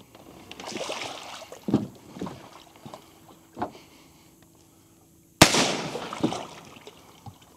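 A single sharp gunshot about five and a half seconds in, dispatching a hooked alligator, with a few smaller knocks before it.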